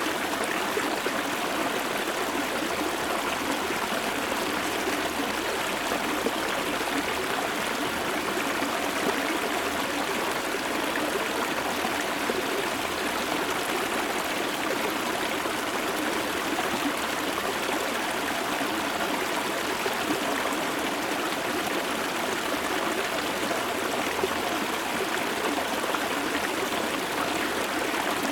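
Shallow river water flowing over a low, dry-season riverbed, heard close up: a steady, even rush of flowing and trickling water that holds level throughout.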